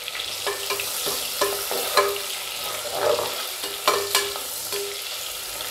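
Sliced onions sizzling in hot oil in an aluminium pressure cooker, while a spatula stirs them and repeatedly scrapes and clinks against the pot's metal side, about ten strokes with brief ringing.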